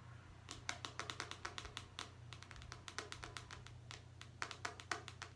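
Light, sharp tapping clicks close to the microphone, several a second in irregular clusters, over a faint low steady hum.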